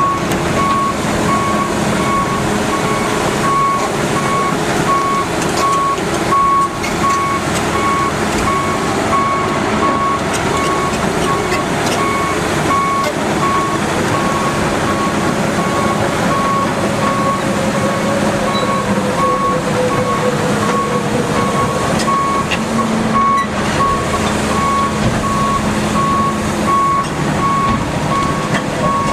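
The six-cylinder turbocharged diesel engine of a 1997 John Deere 892E LC excavator running, with its travel alarm beeping in a steady, even rhythm throughout.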